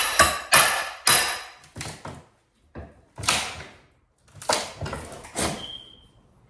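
A hammer striking wood in a series of irregular blows, a quick run at first and then more spaced strikes after a pause, as the trim and frame around an old front door are worked loose. A brief high squeak comes near the end.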